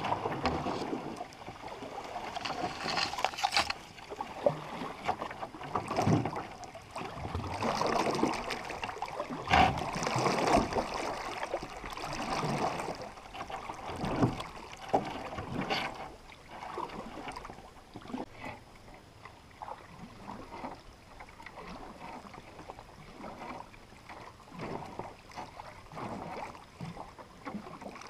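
A canoe being paddled on calm water: repeated paddle strokes swishing and dripping, with a few sharp knocks, softer in the second half.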